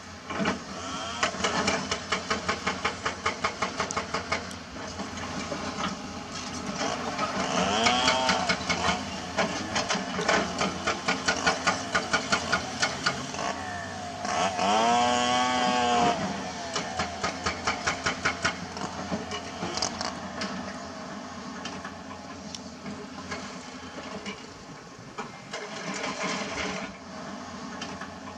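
Caterpillar hydraulic excavators working limestone: the diesel engines run with a rapid, even clatter, revving up and dropping back about eight seconds in and again about fifteen seconds in.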